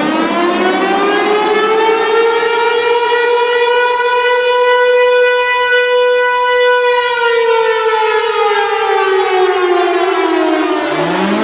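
Air-raid warning siren wailing: its pitch holds high through the middle for a few seconds, then slowly falls, and a new rise begins near the end.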